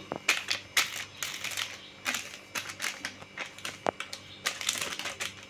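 Plastic ice-cream bar wrappers crinkling as they are handled, a quick irregular run of sharp crackles and clicks.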